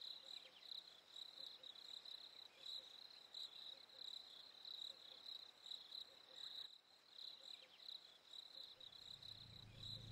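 Crickets chirping faintly in a steady, even pulse. A low rumble starts to build near the end.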